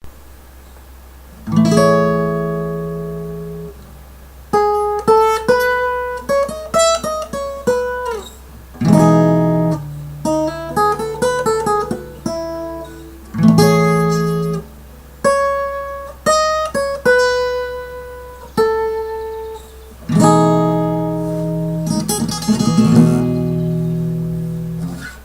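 Acoustic guitar playing an unaccompanied instrumental passage: full chords struck and left to ring, alternating with picked single-note melody runs. A steady low hum sits underneath.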